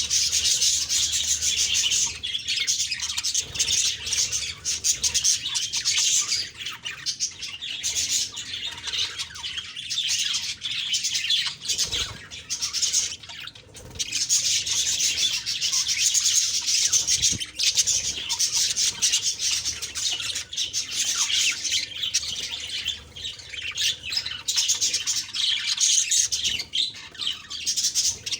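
Budgerigars chattering and chirping continuously, a dense run of quick high warbles and squawks with only brief lulls.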